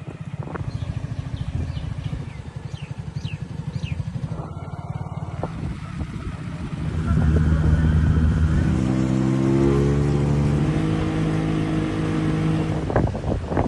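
An engine running with a low, even throb. About seven seconds in it speeds up, getting louder with its pitch climbing, and then holds at the higher speed.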